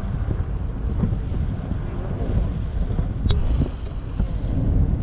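Wind buffeting the microphone over the low rumble of a moving vehicle. A sharp click comes a little past three seconds in, followed by a faint, steady high tone lasting about a second.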